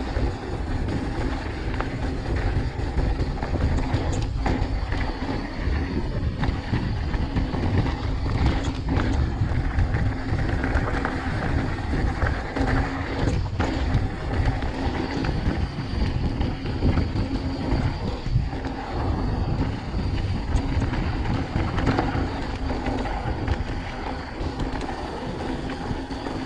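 Mountain bike rolling downhill on a loose gravel and dirt track: tyres crunching over stones, the bike rattling with scattered knocks over bumps, and wind rumbling on the camera microphone.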